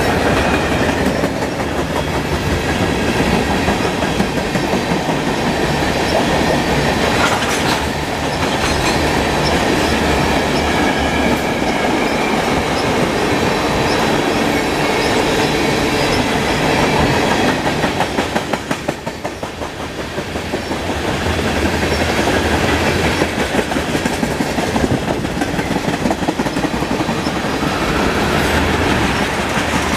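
Freight cars of a fast-moving mixed freight train rolling past, open hoppers and tank cars: steel wheels clacking over the rail joints with a steady rumble, easing briefly about two-thirds of the way through.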